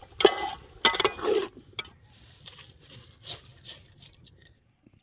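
Metal spoon scraping and clanking against a large aluminium cooking pot while stirring chopped vegetables: three loud strokes in the first second and a half, then lighter scattered clinks and patters that fade out a little over four seconds in.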